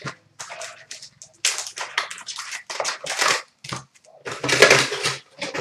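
Cardboard and plastic card packaging being handled as a hockey card box is unpacked and packs are set down on a glass counter: a run of irregular crinkling and rustling, busiest near the end.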